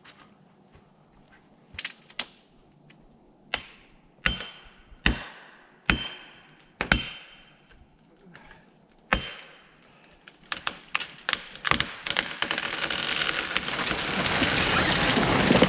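A tree being felled: about eight sharp, ringing blows at its base, a second or so apart, then a quick run of cracks as the hinge wood breaks, and from about twelve seconds in a swelling rush of crackling and swishing as it falls through the neighbouring branches.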